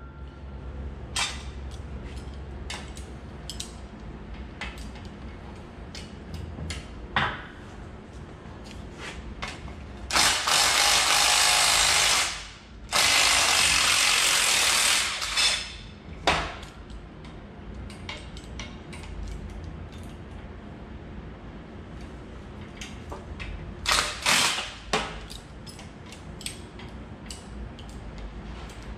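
Power tool run in two bursts of about two seconds each, loosening the center bolt of a leaf spring pack. Scattered clicks and knocks of hand tools and steel spring leaves come before and after.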